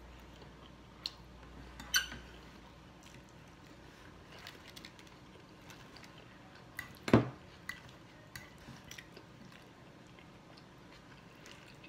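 Close-up eating sounds: spaghetti being chewed and slurped, with small clicks of a fork against the plate. A sharper click about seven seconds in is the loudest sound.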